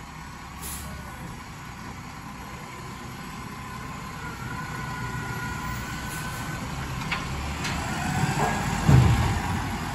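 Automated side-loader garbage truck running at the curb with a steady low rumble. Its engine grows louder toward the end as it begins to pull away, with a short loud surge about nine seconds in.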